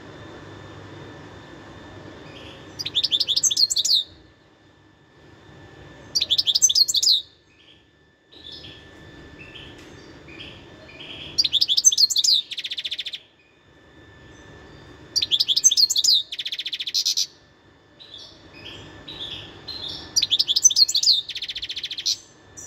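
European goldfinch singing: five bursts of rapid, high twittering song, several ending in a buzzy rattle, with softer short notes between the bursts.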